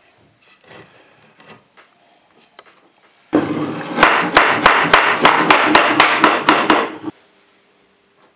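A small hammer striking wood on a picture frame in a fast run of about a dozen blows, roughly four a second, after a few faint knocks of handling.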